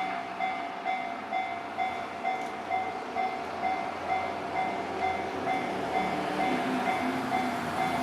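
Japanese railway crossing warning bell ringing steadily, a little over two rings a second. A train's low running rumble grows in the second half.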